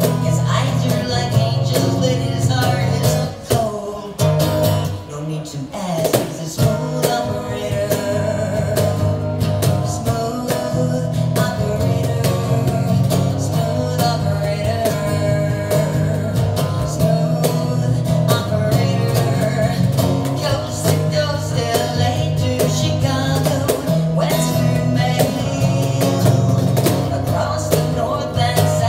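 Live acoustic duo: a woman singing to her own strummed acoustic guitar, with a cajón keeping the beat. The music dips briefly in loudness a few seconds in, then carries on steadily.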